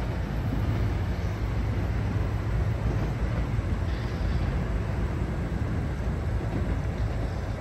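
Steady low rumble of a commuter train pulling away down the line, mixed with wind buffeting the microphone.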